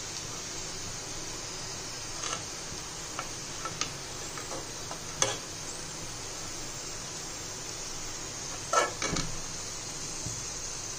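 Onions frying crisp and golden brown in hot oil in a metal kadhai, a steady soft sizzle, while a perforated metal skimmer clinks and scrapes against the pan a few times, loudest about nine seconds in.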